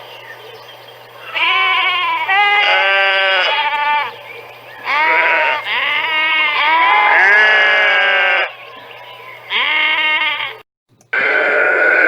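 Sheep bleating: about six loud bleats in a row with short pauses between them. The sound drops out completely for a moment near the end, then the bleating resumes.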